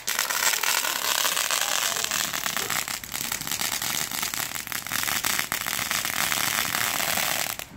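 Ground fountain firework spraying sparks: a steady loud hiss with rapid crackles, starting suddenly as it ignites and cutting off abruptly near the end.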